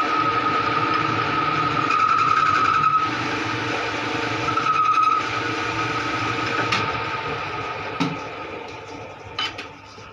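Lathe running and turning the head of a truck centre bolt. The cutting tool gives a steady high-pitched squeal that comes and goes over the machine's hum. The sound drops quieter about eight seconds in, with a few sharp clicks.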